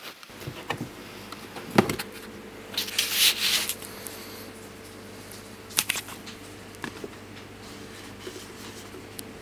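A paper target sheet being handled: crackling paper rustles, loudest about three seconds in, with a few sharp taps, over a steady low hum.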